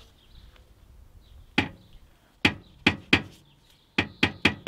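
Rear exhaust muffler of a Nissan Primera P12, wobbled by hand, knocking sharply against nearby metal about seven times, the knocks coming quicker near the end. The muffler's mounting arm is striking the car because its rubber exhaust hanger has come off its mounting point and the muffler is moving too much.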